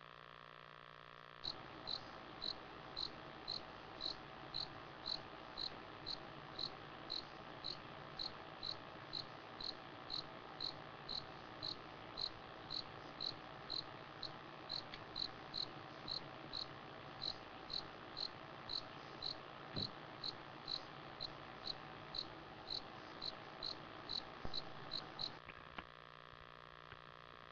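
A cricket chirping steadily, about two short high chirps a second, over the hiss of the bush at night. It starts about a second and a half in and stops shortly before the end.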